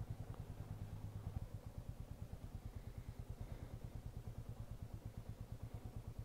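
Motorcycle engine idling with a faint, steady low pulsing at about six or seven beats a second.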